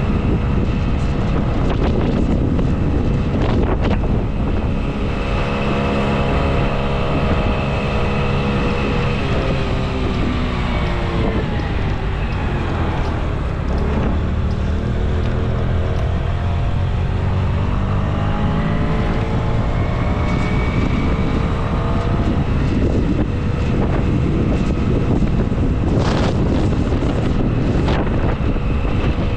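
Street traffic with wind rushing over the microphone. Around the middle a motor vehicle's engine drops in pitch as it slows, then rises again as it speeds up.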